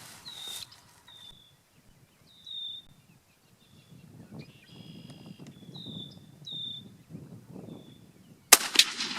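A single shotgun blast with a heavy turkey load of 1 7/8 oz No. 5 lead, about eight and a half seconds in, the loudest sound here, with a short echo after it. Before it, short high chirps come every second or so over a faint low rumble.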